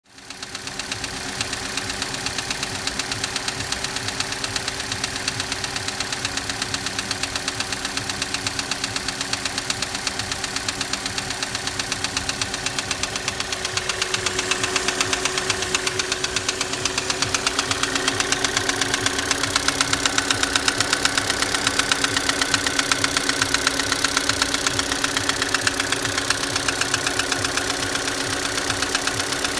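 Opel F16D4/Z16XER 1.6-litre four-cylinder petrol engine running with a steady, rapid knock, its pitch stepping up slightly about halfway through. The knock comes from a piston whose ring lands have broken away, which the mechanic puts down to a lean mixture and detonation.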